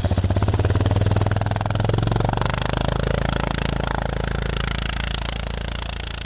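An engine running steadily with an even low pulse, slowly fading over the last few seconds.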